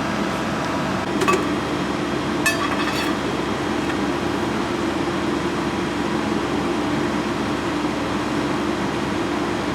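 A hydraulic ironworker (punch and shear machine) running with a steady hum. Short metallic clinks come about a second in and again around two and a half to three seconds in.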